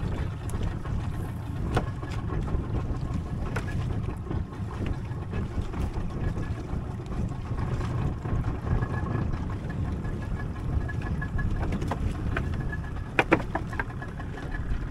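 Steady low rumble of wind and water at sea, with a few sharp knocks scattered through it and a cluster of them near the end.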